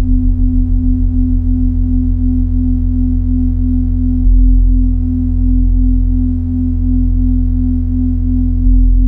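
Minimal electronic drone music of sustained sine-like tones: a loud mid tone that pulses steadily over a deep bass drone, with fainter steady overtones above. The bass shifts about four seconds in and again near the end.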